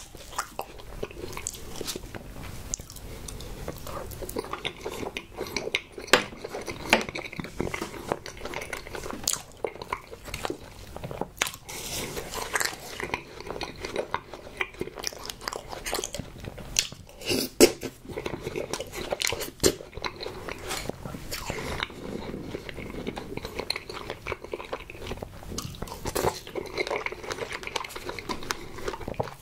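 Close-miked ASMR chewing and mouth sounds of someone eating soft strawberry desserts, with irregular sharp wet smacks and clicks.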